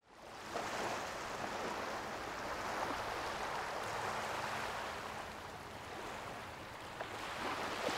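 Small ocean waves washing onto a sandy beach, fading in at the start, the wash swelling and easing gently.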